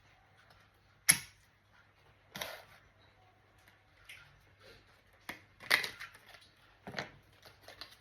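Hands working on a laptop's plastic case and parts: a sharp click about a second in, then a short scrape and several more clicks and rattles.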